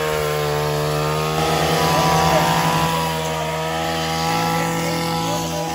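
Petrol brush cutter running steadily as it cuts grass, its engine pitch shifting slightly a couple of times.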